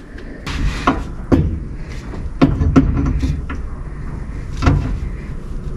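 Driveshaft and carrier bearing being forced up into place under the car: a run of irregular metal knocks and clunks, about six in all, over a low handling rumble.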